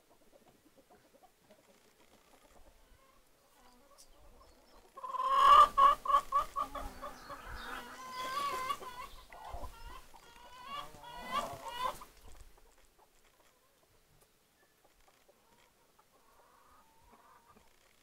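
Chickens cackling: a loud run of short, quickly repeated clucking calls that starts abruptly about five seconds in and lasts about seven seconds, with a few faint clucks near the end.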